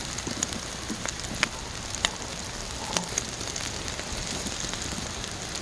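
Campfire cooking: a steady crackling hiss with sharp pops about once a second.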